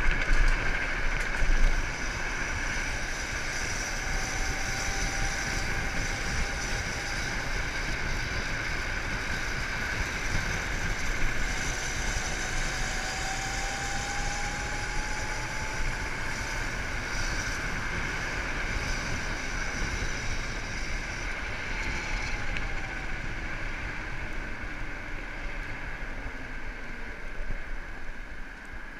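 Wind rushing over the microphone and road noise from a small motorbike riding at speed. There are louder wind buffets in the first two seconds and a faint rising whine a few times.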